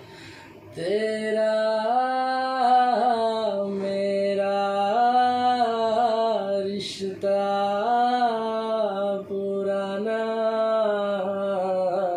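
A man's singing voice holding long, drawn-out notes that step up and down in a slow melody, with no clear words. Short breaths break the line between phrases, about every three seconds.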